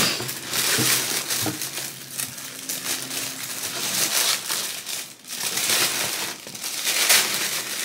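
Plastic or paper packaging crinkling and rustling as a wrapped item is handled and unwrapped, in repeated loud surges.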